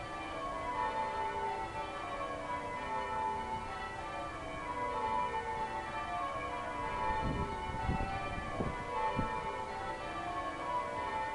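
Cathedral bells ringing, many bells struck one after another with their tones overlapping and ringing on.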